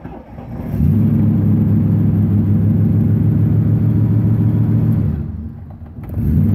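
Triumph Stag's 3.0-litre V8 being started from cold, the first start on a newly fitted Pertronix Ignitor II electronic ignition and Flame Thrower II coil. It runs with a steady low note from about a second in, drops away about five seconds in, and picks up again near the end.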